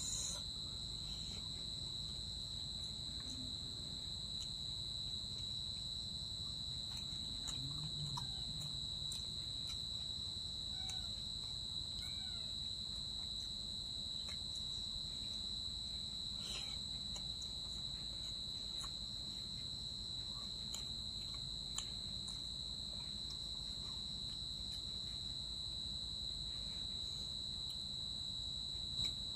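Steady, unbroken high-pitched insect trill on one pitch, with a few faint clicks.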